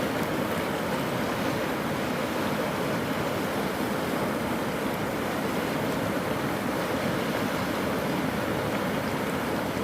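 Flooded river rushing: a steady, even roar of fast-flowing water.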